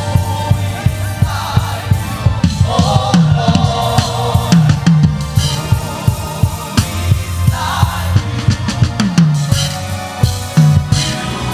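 Live gospel band music with the drum kit to the fore, kick and snare keeping a steady beat over sustained instrumental tones.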